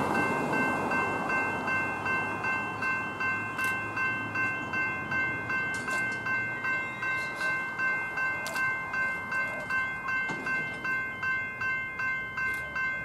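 Level crossing's General Signals E-Bell electronic bells ringing in a steady rhythm of about two strikes a second. A passing train's noise fades away over the first couple of seconds.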